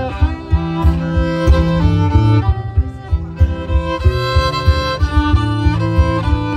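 Fiddle playing a melodic instrumental break, with held and sliding notes, over steadily strummed acoustic guitar.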